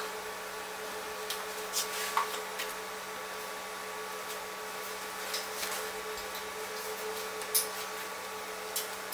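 A steady machine hum, with a few light clicks and taps scattered through it. One tap, about two seconds in, rings briefly.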